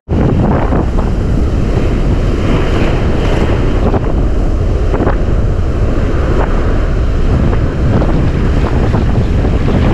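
Wind buffeting the microphone over ocean surf washing up the beach, a loud, steady rush.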